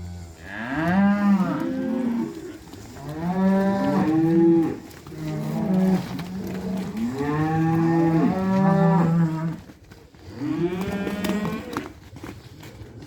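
Several cattle mooing, long calls coming in about four bouts with two or more animals overlapping at different pitches.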